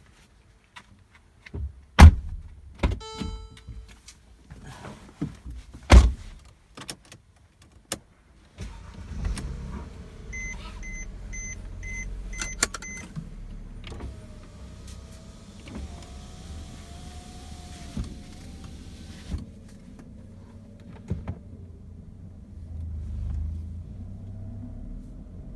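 Two loud thumps and a short chime, then the 2010 Mercedes-Benz GLK350's 3.5-litre V6 starts about eight and a half seconds in and runs steadily on fresh oil. Five short warning beeps sound soon after it starts.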